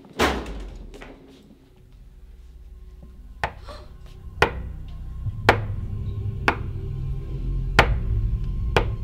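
Horror film score: a heavy impact with a long decaying tail, then a low rumbling drone that slowly swells. Over it come sharp clicking hits, about one a second, from a few seconds in.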